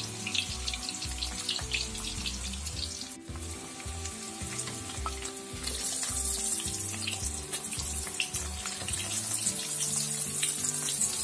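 Cassava chunks deep-frying in a wok of hot oil over a low flame: a steady sizzle with many small crackles. About halfway through, the hiss grows louder and brighter as tongs turn the pieces.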